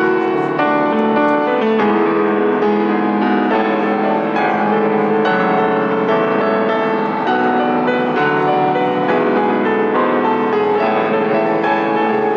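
Instrumental music with a piano-like keyboard sound: a continuous melody of held notes over chords, loud and close.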